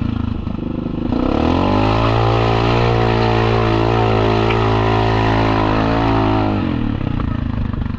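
Yamaha Kodiak 700 ATV's single-cylinder engine revving up about a second in, holding high revs for several seconds, then dropping back near the end, as the ATV pushes through mud.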